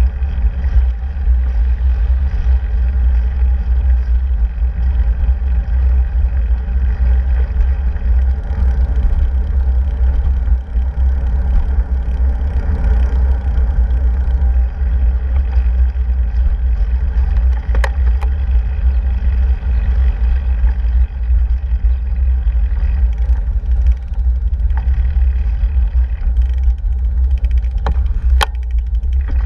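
Steady low wind rumble on the microphone of a moving bicycle, over road and car traffic noise. Three sharp clicks, one midway and two close together near the end.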